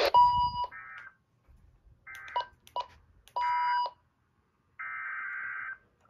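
Weather radio receiving an alert: several short, buzzy digital data bursts of the emergency-alert (SAME) header with silent gaps between them, marking the start of a warning cancellation message. Two short electronic beeps come in as well, one at the start and one about three and a half seconds in.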